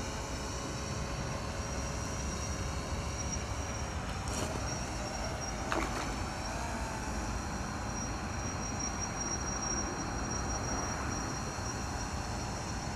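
Steady low rumble and hiss of outdoor background noise, with faint thin high tones over it and two brief sharp sounds about four and a half and six seconds in.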